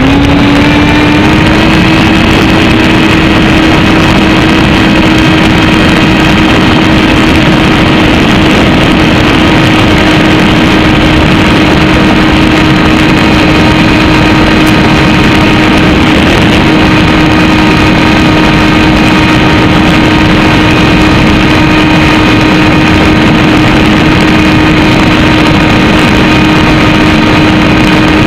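Motor of an RC model running steadily, heard loud through its onboard FPV camera's microphone: a whine that climbs in pitch in the first second or so and then holds at one pitch over heavy hiss.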